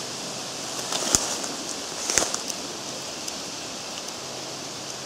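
Soft steady rustling with a few short clicks or snaps, the clearest about one and two seconds in.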